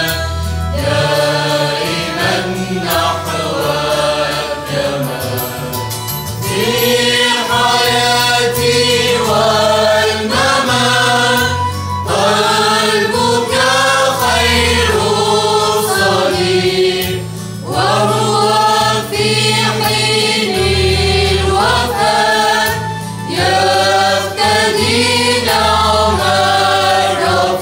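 Mixed choir of women and men singing a church hymn, with steady low notes beneath the voices.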